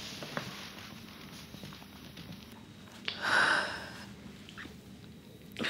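A woman sniffling as she cries: one loud, sharp sniff about three seconds in.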